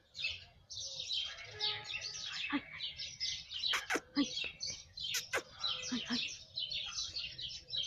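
Many small birds chirping at once in a dense, continuous chatter, with a few sharp clicks in the middle.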